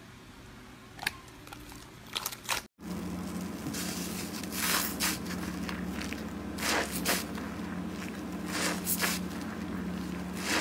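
A few faint sticky pops and clicks from slime in a bowl, then, after a sudden cut about three seconds in, wet squelching and foamy crackle from a strawberry-shaped sponge squeezed by hand in soapy water. The squelching swells with each squeeze, roughly every two seconds, over a steady low hum.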